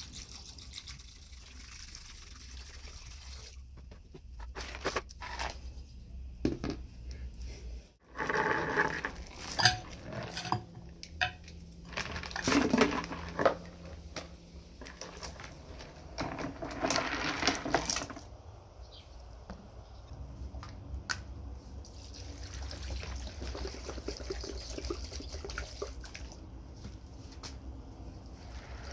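Liquid poured over a rusty steel chain in a plastic bucket, then water splashing and sloshing as the chain is rinsed in a bucket of water, with sharp clinks from the links.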